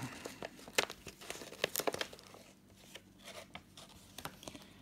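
White paper wrapping inside a gift box crinkling and tearing as its sticker seal is peeled off and the sheet is folded open. A run of sharp crackles that thins out after about two seconds.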